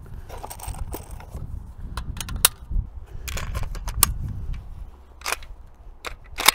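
Metal clicks and clacks of an AK-pattern rifle being handled, with its recoil spring assembly, dust cover and action being worked. The sharp snaps come irregularly, and the loudest is near the end.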